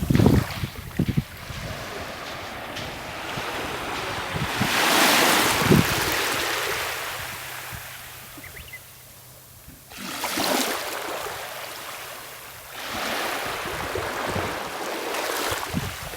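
Sea waves washing onto the shore, the surf swelling and fading several times a few seconds apart, with wind buffeting the microphone.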